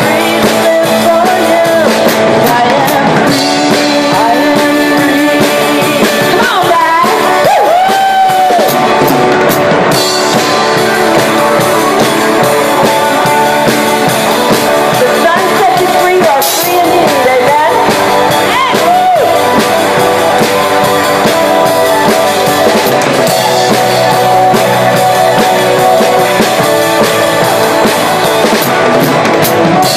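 Live band playing a song, with the drum kit close at hand, guitars, and a voice singing the melody.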